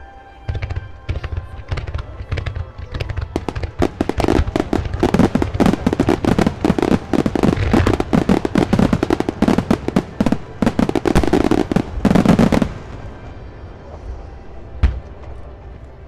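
Fireworks going off in a rapid barrage of bangs and crackles that thickens into a dense finale-like volley, then stops abruptly; a single bang follows a couple of seconds later.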